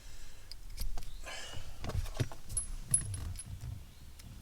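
Hand tools and plastic interior trim being handled around a car's gear shifter: scattered small clicks and knocks, a short rustling scrape about a second in, and a few light metallic clinks, as the screws of the shift boot trim are worked loose.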